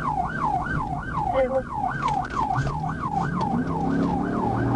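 Police patrol car's siren in yelp mode: a fast rising-and-falling wail of about three sweeps a second, over engine and road noise, cutting off just before the end.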